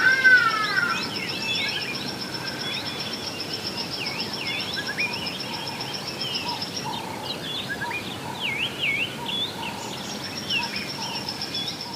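Several birds chirping and whistling over a steady outdoor hiss, with a loud curved whistle right at the start. A steady high-pitched, rapidly pulsed trill runs underneath, stops a few seconds before the end and then comes back.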